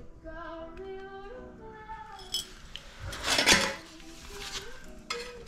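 Background music with a melody, and about three seconds in a short clatter and scrape as a clamp meter is lifted off a steel water-heater access cover, with a few lighter clicks around it.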